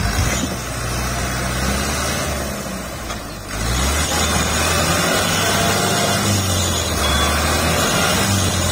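Fiat 640 tractor's diesel engine labouring under heavy load as it drags a laden trailer. Its note sags a little before about three and a half seconds in, then picks up again and holds steady.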